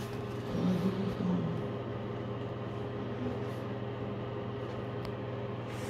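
A steady low hum, with faint speech from a television in the background during the first second and a half.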